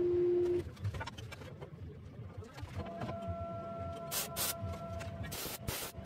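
Short crackling bursts of MIG welding as steel plate is tack-welded, several in the second half, over background music with held notes.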